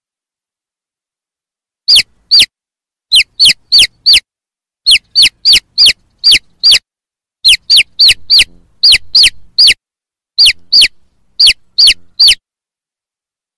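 Young chicks peeping: loud, high, falling single peeps in quick runs of two to four, starting about two seconds in. This is the typical contact or distress peep of chicks calling for the hen.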